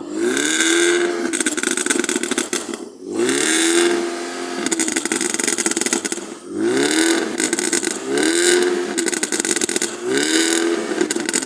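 Volkswagen Golf GTI engine revved five times, each rev rising quickly in pitch and holding briefly. Rapid crackles and pops come from the exhaust as each rev drops.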